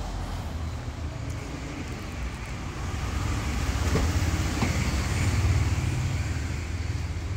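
Low motor-vehicle rumble that swells louder about halfway through and eases off near the end, like a vehicle passing by.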